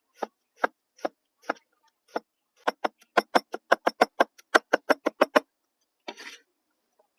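A knife chopping on a cutting board: a few slow strokes, then a quick run of about five strokes a second that stops about five and a half seconds in, followed by a brief rustle.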